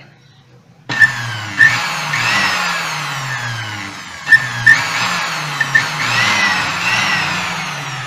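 Moulinex blender motor switched on with its housing open: it starts about a second in and runs at speed, its whine rising and falling in pitch, with several sharp clicks. It now runs normally without shorting, its swapped terminals corrected.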